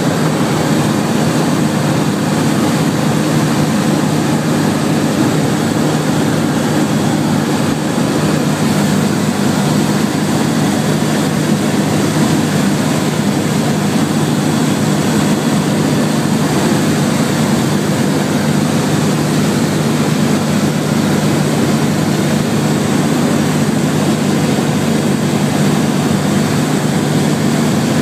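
Zenair 601 light aircraft's piston engine and propeller running steadily in flight, heard from inside the cockpit as an unchanging drone with airflow noise.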